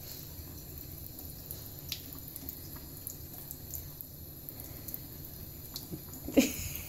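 Thin trickle of water from a bathroom sink faucet, with faint scattered drips and ticks as kittens drink at the stream. A single brief, louder sound about six seconds in.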